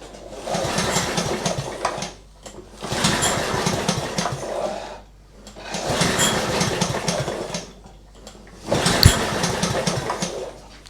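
Walk-behind lawn mower's small engine cranked on the choke with the pull-start cord four times, turning over without catching, with a sharp knock during the last pull. The engine will not run even though it has spark.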